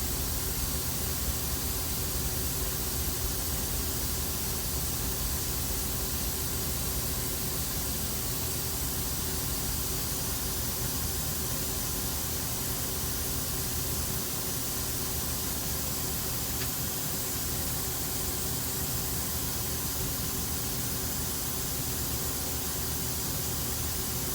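Steady hum and hiss of a powered-up CNC lathe, with several low humming tones and no distinct events.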